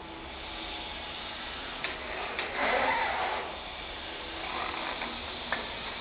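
Clicks and a short mechanical rattle from a stretch wrapper's film carriage as its roller gate is handled and stretch film is drawn out through the pre-stretch rollers. The loudest rattle comes about halfway through, and there are sharp single clicks before it and near the end.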